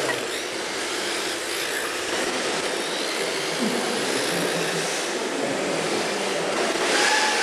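Radio-controlled Kyosho Dancing Rider trikes running on a carpet track, their electric motors whining over tyre hiss, getting louder near the end as one passes close.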